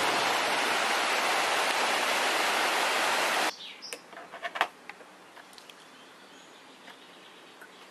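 Steady rush of river water running over rocks, cutting off abruptly after about three and a half seconds. Then a quiet room with a few small clicks and taps from handling fly-tying tools at a vise.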